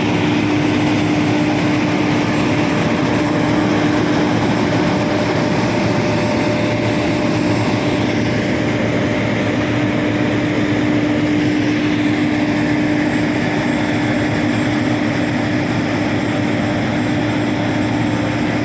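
Combine harvester running steadily while harvesting wheat: an even machine drone with a constant hum through it.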